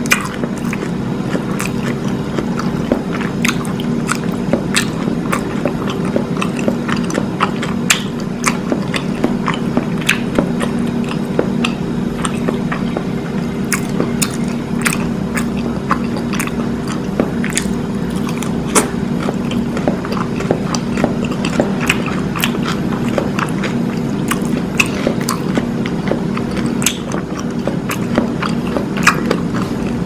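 Crisp hard-shell corn taco being bitten and chewed close to the microphone: a dense, irregular stream of sharp crunches and crackles, over a steady low hum.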